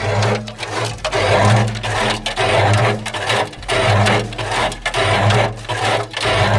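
Washing machine running with its drum turning, a low motor hum and a loud noisy surge repeating about twice a second as the drum goes round.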